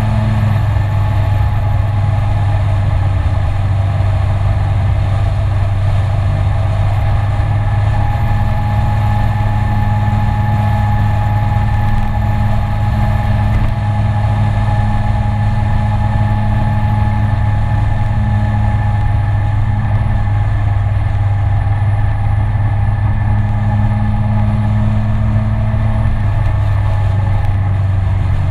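SYM Citycom 300i scooter's single-cylinder four-stroke engine running at a steady cruising speed, its pitch holding level throughout.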